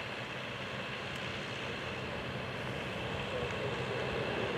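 Jet engines of a Lockheed L-1011 TriStar on approach: a steady jet noise with a high whine, slowly growing louder as the airliner comes in.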